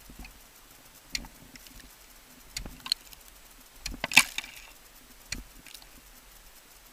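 Ice axe picks striking and biting into waterfall ice: a series of sharp chopping hits at uneven intervals, the loudest a quick cluster about four seconds in.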